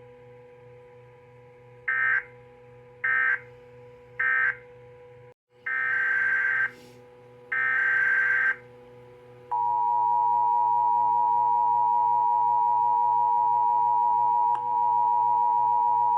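Emergency Alert System tones. First come three short squawks of end-of-message data, then, after a brief dropout, two longer data bursts, each a harsh buzzy warble. About nine and a half seconds in, the steady two-tone attention signal starts and holds to the end, over a faint steady hum.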